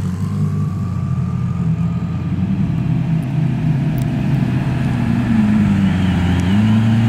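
Lamborghini Aventador's V12 engine running at low speed as the car rolls past. Near the end the engine note steps up in pitch and gets louder.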